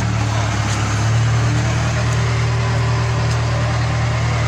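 Backhoe loader's diesel engine running steadily close by, a low even hum that swells slightly about a second in.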